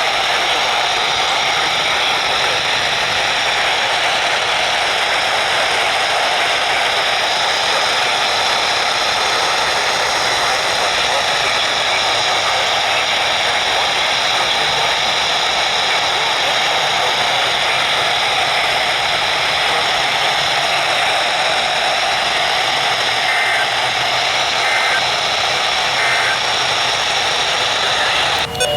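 Steady hiss of radio static from a receiver tuned to a weak or empty weather-radio channel, holding an even level throughout.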